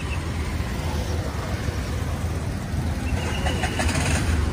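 Street traffic passing: a steady rumble of car, tuk-tuk and motorbike engines, with a brief high-pitched whine about three seconds in.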